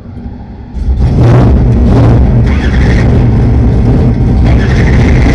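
Drag race car's engine firing up under a second in, then running loud with the throttle blipped a few times, heard from inside the cockpit.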